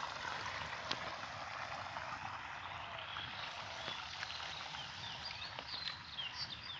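Outdoor field ambience: a steady hiss with scattered faint clicks, and from about halfway in, quick high chirping calls repeating.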